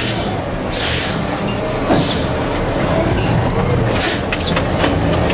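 Madill 120 grapple yarder's engine running steadily, heard from inside the operator's cab, with several short sharp hisses over it.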